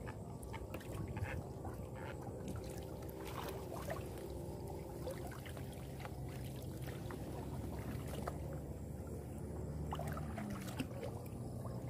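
Water sloshing and trickling, with scattered small knocks and clicks, over a low steady hum that drops away about ten seconds in.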